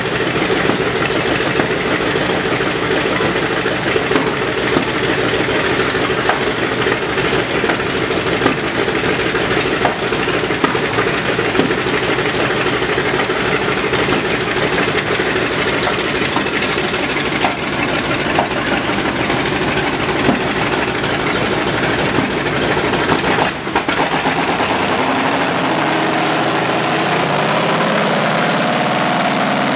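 Engines of WWII tracked armoured vehicles running at low speed in a column, a steady rough engine note. Just before the last quarter the sound breaks off briefly and an M4 Sherman tank's engine is heard close by, its pitch rising as it pulls past.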